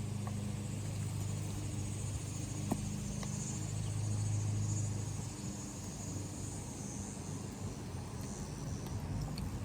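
Steady low mechanical hum that eases off about five seconds in, with a faint high insect buzz above it.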